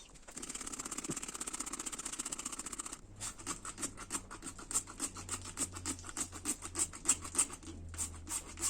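Soapy water being sprayed onto a tire to find a leak: a steady spray hiss for about three seconds, then rapid, irregular clicking to the end.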